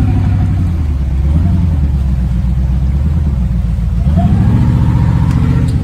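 Off-road 4x4's engine running hard as the vehicle drives through mud, revving up harder about four seconds in.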